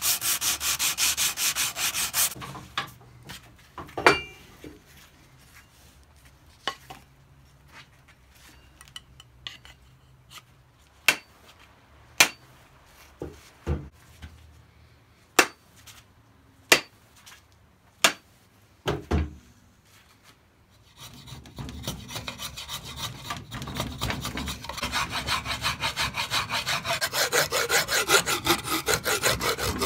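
A sanding block rubbing on a hickory axe handle for about two seconds. Then about a dozen sharp knocks at uneven intervals, a wooden mallet tapping the handle. From about three-quarters of the way through comes the quick back-and-forth scraping of a rasp on the wood, growing louder.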